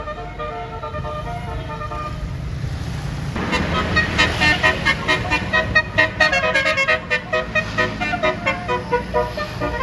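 Bus-mounted basuri telolet air horn playing a fast tune of short, quickly changing notes. It is quieter in the first two seconds and loud from about three seconds in, over the low running of the bus engine.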